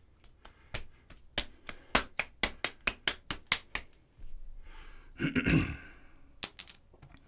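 Hands working pottery clay on a plaster surface: a quick run of sharp slaps, about four a second, then a longer rubbing scrape, and a few more taps near the end.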